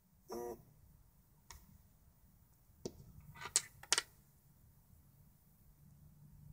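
A Pebble smartwatch's vibration motor buzzes once, briefly, against a wooden desk as a notification arrives. Then come a few sharp clicks and knocks, the loudest near the middle, as the watch is picked up and handled.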